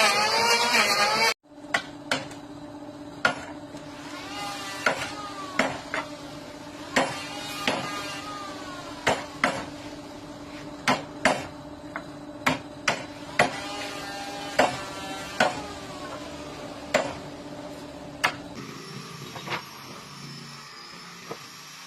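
Hammer blows in a woodworking shop, sharp separate strikes about one a second, with a steady low hum underneath. A loud sound cuts off abruptly about a second in, and near the end the hum changes to a steadier machine sound with a high whine.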